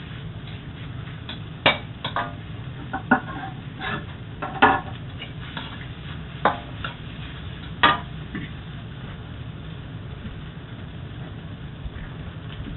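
Metal spatula stirring fried rice in a wok, striking and scraping the pan with about seven sharp, ringing clanks in the first eight seconds. Then the stirring stops and only a low steady hum remains.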